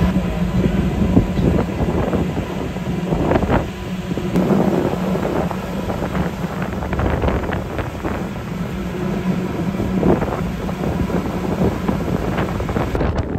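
Wind buffeting the microphone aboard a moving boat, over the steady low drone of the boat's engine, with a hum that fades after the first few seconds.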